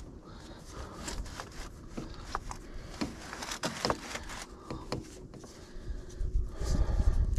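White PVC drain pipe and elbow fittings pushed and twisted together by hand, dry-fitted without glue: a string of short plastic scrapes and clicks, with heavier bumps and rustling near the end.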